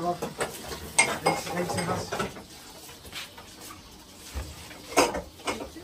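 Kitchenware being handled: clinks and knocks, with a sharp clack about a second in and another near the end.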